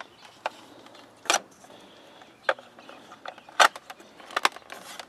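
Handling noise from a plastic tune-up analyzer and its test leads being put down and picked up: scattered clicks and light knocks, with the loudest about a second in and near the middle.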